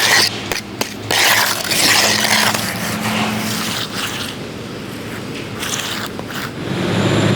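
Irregular scraping and rustling close to the microphone over a concrete mixer truck's engine running low and steady. The engine grows louder near the end.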